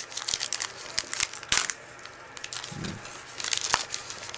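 Crinkling and crackling of a trading-card pack wrapper being handled and torn open. It comes in two spells of quick crackles, with a short lull in the middle.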